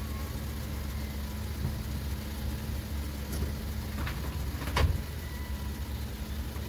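Car engine idling steadily, with two sharp knocks about four and five seconds in, the second louder, as the jacked-up front wheel is steered to the left.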